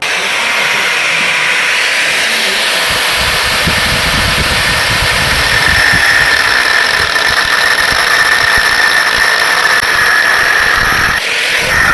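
Angle grinder cutting into the sheet-metal casing of a motorcycle silencer: harsh grinding noise with a steady high whine that strengthens a few seconds in, and a brief dip near the end.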